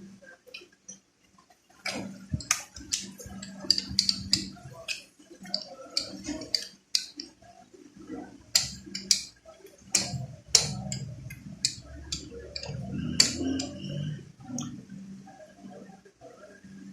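Kitchen clatter: irregular sharp clicks and knocks of utensils, over low handling noise, starting about two seconds in.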